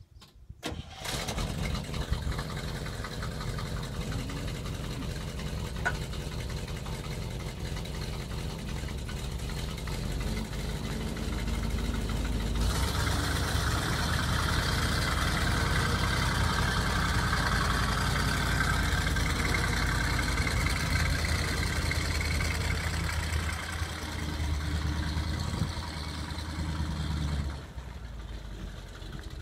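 1976 Chevrolet C65 truck's V8 gas engine (366/427 family) running steadily, then louder from about halfway as the truck drives off, with a sharp drop in level near the end.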